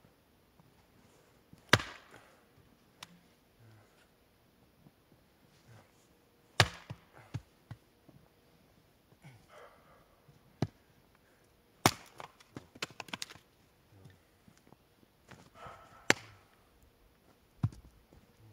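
An axe splitting firewood on a chopping block: about six sharp chops spaced a few seconds apart, with a quick run of lighter wooden knocks near the middle.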